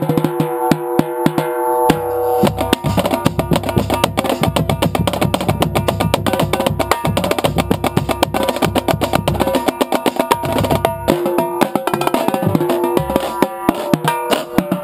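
Marching drumline playing a cadence, heard up close from the tenor drums: rapid strokes moving across the tuned tenor drums. Deep bass drum notes run underneath from about two seconds in until about eleven seconds.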